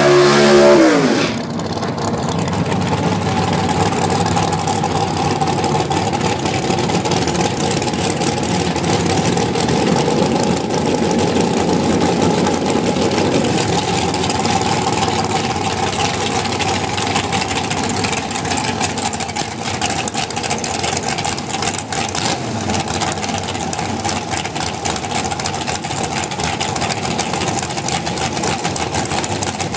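Dragster engine idling with a steady drone. It opens with a loud engine note falling in pitch over the first second or so.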